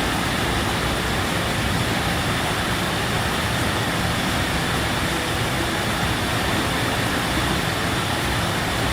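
Waterfall: water falling and rushing steadily, a dense, even roar with no change.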